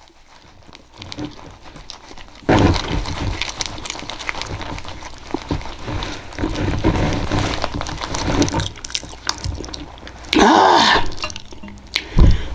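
Close-miked, wet smacking and chewing of big mouthfuls of buttery pound cake, starting a couple of seconds in. Near the end there is a short loud vocal sound falling in pitch, then a thump.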